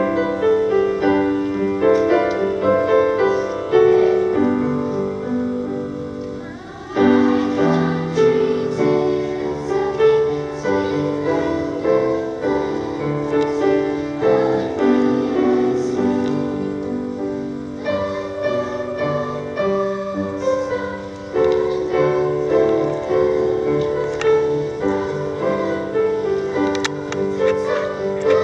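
Piano music playing: chords and a melody in a continuous piece, with brief phrase breaks about seven seconds in and again around twenty-one seconds.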